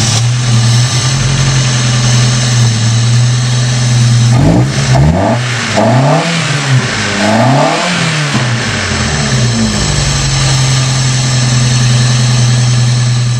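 Chevy engine, fitted with new chrome headers and with its catalytic converter removed, idling steadily. A few quick revs come in the middle, then it settles back to idle. It is being run to check the new exhaust for leaks.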